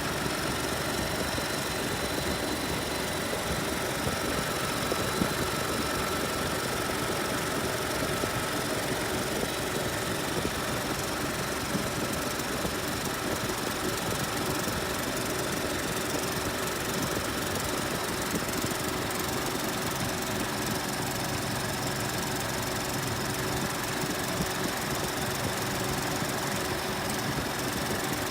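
2018 Ford Expedition's 3.5-litre twin-turbo EcoBoost V6 running steadily after a cold start, with a fast, even ticking over the engine note.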